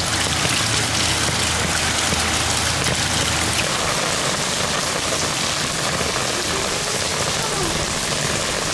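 Rain falling on a wet cobbled street as a steady, even hiss, with rainwater running from a drainpipe and along a stone gutter channel. A low hum sits under it for the first three and a half seconds or so.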